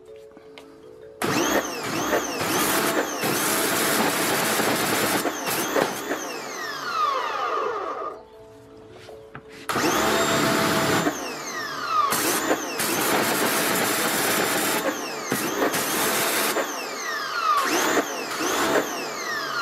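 Parkside PHD 135 C2 electric pressure washer starting when the trigger is squeezed and running under load with the hiss of the water jet, then winding down with a falling whine when the trigger is let go. This happens several times, with short pauses about a second in and around eight seconds in. The stop-start follows its automatic start-stop system, which runs the motor only while the trigger is held.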